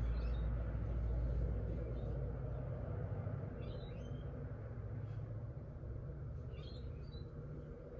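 Birds chirping a few times in short high calls, about a second in, near the middle and again near the end, over a low rumble that slowly fades.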